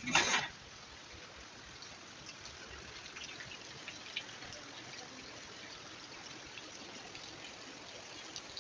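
Steady rain falling and trickling, an even hiss, with a brief loud noise right at the start.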